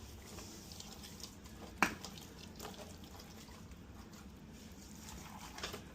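Faint wet patting and squelching of hands rubbing seasoning into the cavity of a raw turkey, with one sharp click about two seconds in.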